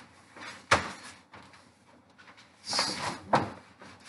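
Drum heads and a cardboard sheet being handled: a sharp knock a little under a second in, then a brief scraping rustle and a second knock near the end.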